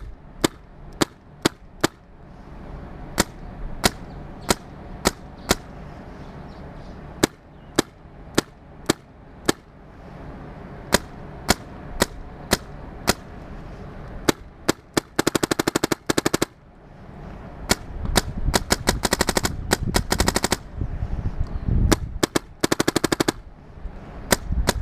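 Bob Long Insight NG and Macdev Clone GTI paintball markers being fired, each shot a sharp pop. First single shots about two a second, then from about two-thirds of the way in several short strings of rapid fire.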